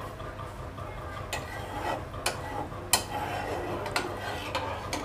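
A spatula stirring thin curry gravy in a non-stick kadai, knocking and scraping against the pan in several sharp, irregular clicks over a steady low hum.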